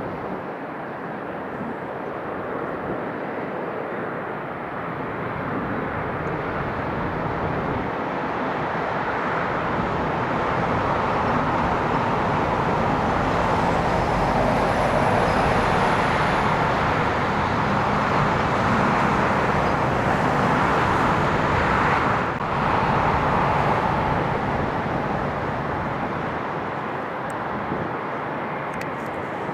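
Jet airliner taking off, its engine noise swelling to a loud peak around the middle and then slowly fading.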